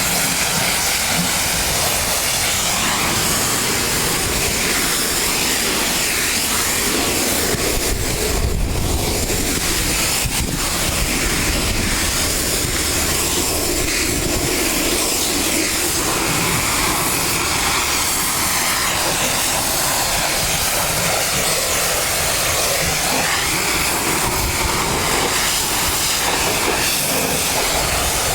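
Pressure washer spraying, a loud, steady hiss of the water jet that keeps going without a break.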